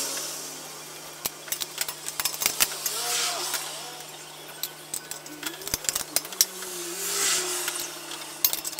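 Irregular metallic clicks and taps of a hand wrench working the engine fan's mounting nuts on the water pump pulley, with a couple of short murmured vocal sounds and a faint steady hum beneath.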